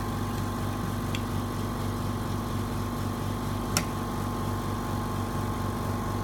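Steady low machine hum with several fixed tones, unchanging throughout; a faint tick about a second in and a sharp click near the middle.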